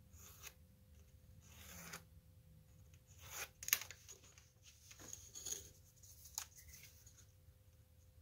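Faint scratching of a pen marking a small pine block, with rustles and scrapes of the wooden drawer being shifted against it on the workbench; the loudest scrape comes about three and a half seconds in, and a short sharp click about six and a half seconds in.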